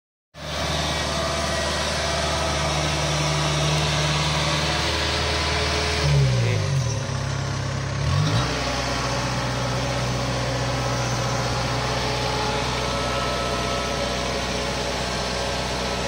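Kubota DC-70 combine harvester's diesel engine running steadily. About six seconds in its pitch sags, then it climbs back up about two seconds later.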